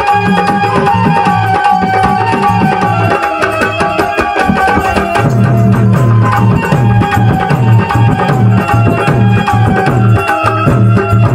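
Indian folk dance music: a hand drum plays a quick, steady rhythm under a held melody line. The drumming grows heavier about halfway through.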